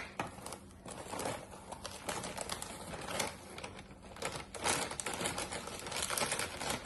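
Utensil beating batter by hand in a bowl, clicking and scraping against the sides in quick irregular strokes that get busier about halfway through.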